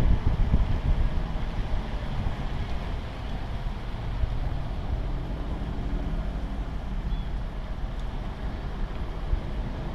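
Car driving slowly: a steady low rumble of engine and tyres, with some wind on the microphone, more uneven in the first second.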